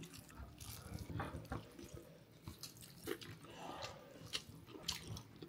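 Faint wet chewing and small mouth clicks of a person eating lemon rice mixed with curd by hand, in short scattered ticks.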